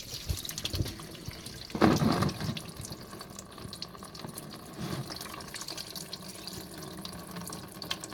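Radiator coolant pouring from the radiator's drain plug into a bucket, a steady stream of splashing liquid, flowing freer with the radiator cap off. A brief louder burst about two seconds in.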